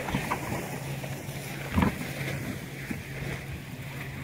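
A hinged bow seat lid on a fibreglass boat being handled: one short knock about two seconds in, over a steady low hum and light wind and water noise.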